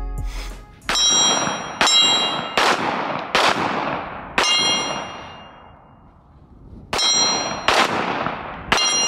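Eight semi-automatic pistol shots: five about a second apart, a pause, then three more. Several shots are followed by a high metallic ring, typical of a bullet striking a steel target.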